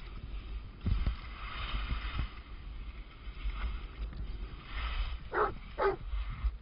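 Touring skis sliding and scraping over spring snow on a descent, a hissing scrape that comes and goes, with wind and handling rumble on the microphone. Two short squeaks come near the end.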